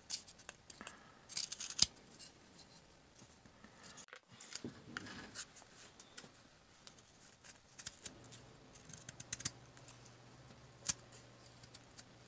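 Knife blade whittling a buckthorn wood handle: irregular short scraping and cutting strokes as shavings peel off the wood.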